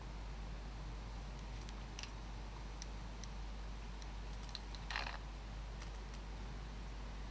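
Quiet background with a steady low hum, a few faint scattered ticks, and one brief hiss about five seconds in.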